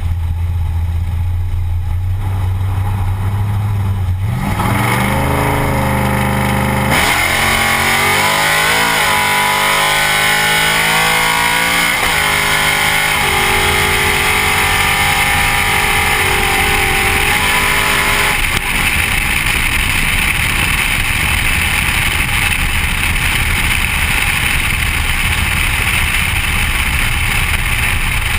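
Drag-racing Ford Thunderbird heard from on board: its engine idles low, revs once, then launches at full throttle with the pitch climbing through the gears and a brief break at a shift about halfway. The engine note drops away about two-thirds through as the throttle is lifted at the end of the pass, and steady wind and road rush carry on.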